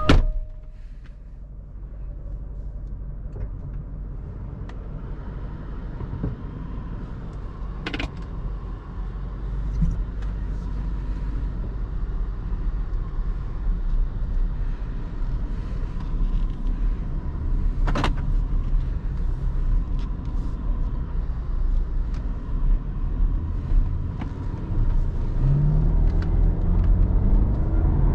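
Range Rover L322's 5.0-litre supercharged V8 heard from inside the cabin, running with a steady low rumble that grows louder as the car moves off, its note rising near the end. A door shuts with a thud at the start, and there are two sharp clicks in between.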